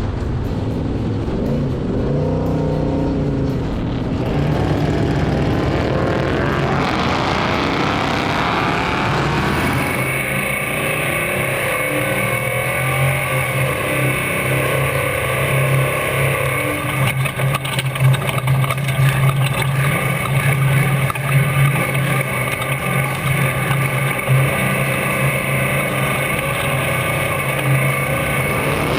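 Off-road race vehicle engines running, revving up and down for the first several seconds, then holding a steady high engine note from about ten seconds in.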